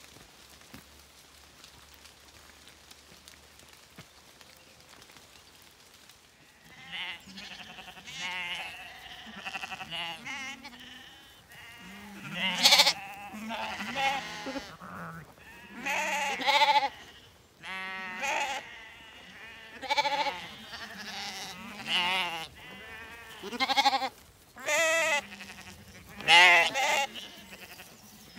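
Zwartbles lambs bleating over and over, many quavering bleats one after another, starting after a quiet first few seconds.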